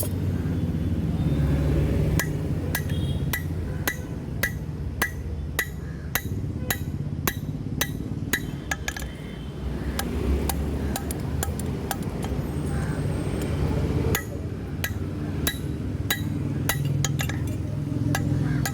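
Hammer striking steel on an anvil: a steady run of sharp metallic blows, about two a second, each with a short ring, over a low steady rumble.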